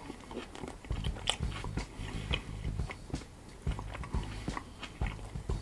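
A person chewing a mouthful of pizza with the mouth closed: irregular short clicks and low thumps, starting about a second in.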